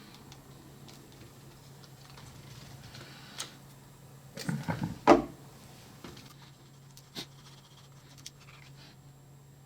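Bench work on a plastic trim part: scattered light clicks and taps, then a short cluster of knocks about halfway through, ending in one sharp knock, over a steady low hum.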